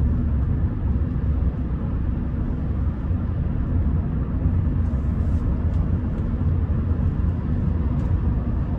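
Steady low rumble inside the cabin of a Rolls-Royce Silver Spirit driving at road speed, with tyre, engine and wind noise.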